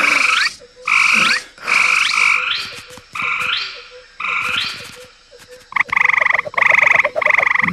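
Animal-call lure whistle, a cartoon sound effect, giving five short croaking calls that each end in a rising squeak, then three longer rattling trills near the end.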